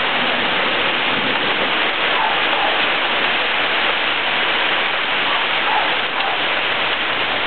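Steady rain from a thunderstorm, falling in an even hiss.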